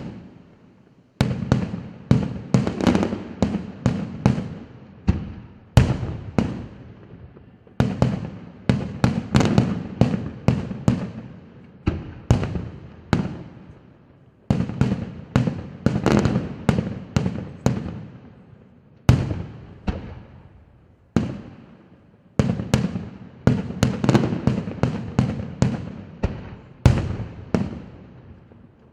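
Aerial firework shells bursting in a dense barrage: sharp bangs, often several a second, each fading off with an echo. The volleys are broken by short lulls.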